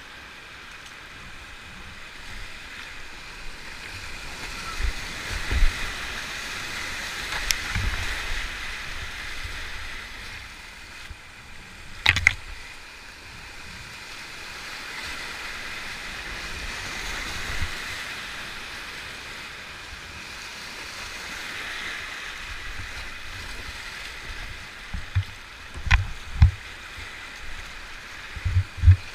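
Whitewater rapids rushing around a kayak as it runs a steep rocky river, the roar of the water swelling and fading. Several sharp knocks and low thumps break through, the loudest about twelve seconds in and a cluster near the end.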